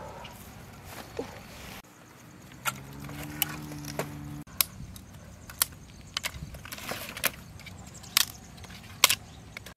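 Dry sticks snapping as firewood is broken by hand: a series of sharp cracks about a second apart, the loudest near the end. Earlier, a low steady hum lasts about a second and a half.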